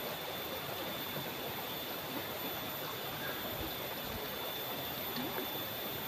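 Shallow stream flowing over rocks: a steady rush and babble of running water.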